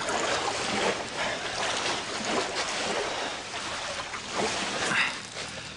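Steady wind and sea water washing against the shore.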